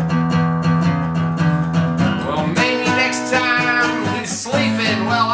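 Steel-string acoustic guitar playing a blues with a steady picked rhythm.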